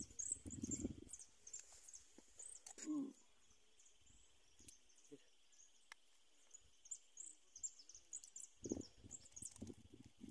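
Faint chirping of small birds, many short high calls, over a steady faint high buzz. A few soft low thuds of handling come near the start and again near the end.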